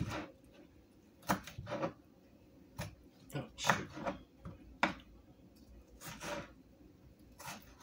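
Kitchen knife chopping a cucumber on a plastic cutting board: uneven knocks of the blade through the slices onto the board, about once a second.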